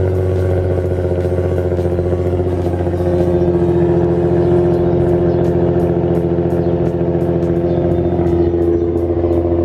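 Nissan NISMO V6 idling steadily through a newly fitted titanium Tomei dual-exit exhaust, a little louder from about three seconds in.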